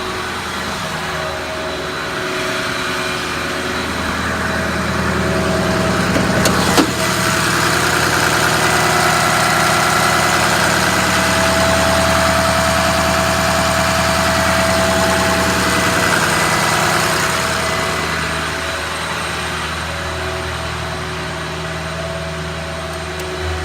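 6.0 Power Stroke V8 diesel idling with the PTO engaged while the truck's hydraulic air compressor runs. The steady hum builds about four seconds in, with a click a few seconds later, holds louder with an added whine, then eases back near the end.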